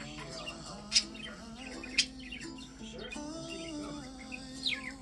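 Budgerigar chirping: two short, sharp chirps about one and two seconds in and a falling chirp near the end, over background music with held notes.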